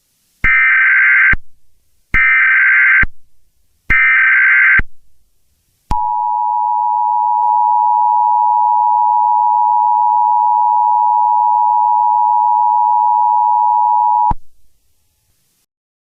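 Emergency Alert System SAME header: three bursts of digital data tones, each just under a second long. They are followed by the two-tone EAS attention signal, held steadily for about eight seconds before it cuts off abruptly. Together they are the signal that a new emergency alert is about to be read.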